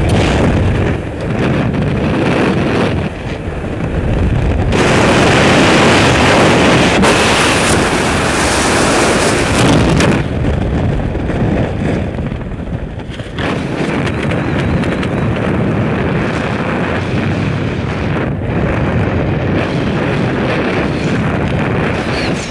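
Wind rushing and buffeting over the microphone of a parachutist's camera after a static-line exit. It is loudest from about five to ten seconds in, eases briefly, then settles into a steadier rush under the open canopy.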